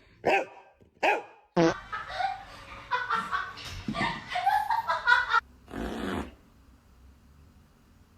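A dog barking and vocalising in a series of short bursts, one after another, then falling quiet for the last two seconds.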